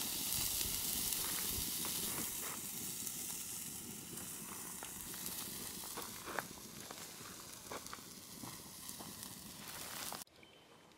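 Two New York strip steaks sizzling on a grill grate over a wood campfire, with a steady hiss and a few sharp pops. The sizzle grows fainter and cuts off near the end.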